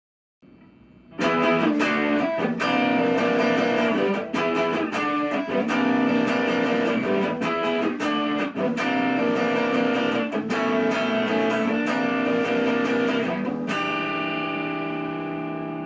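Gibson Les Paul Special electric guitar played through a Marshall Master Lead 30 amp, starting about a second in with a run of picked notes and chords. It ends on a held chord whose pitch dips downward near the end, a Bigsby B7 vibrato bend.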